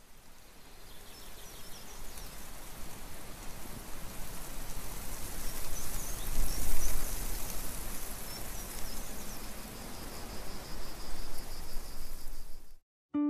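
Outdoor nature ambience: an even rushing noise, like light rain or wind, that fades in over the first few seconds, with faint high chirps and a low rumble swelling about halfway through. It cuts off abruptly near the end.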